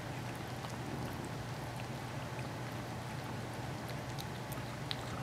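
Kittens eating a mix of wet cat food and kibble from a bowl: scattered small wet clicks of chewing and lapping over a steady low hum.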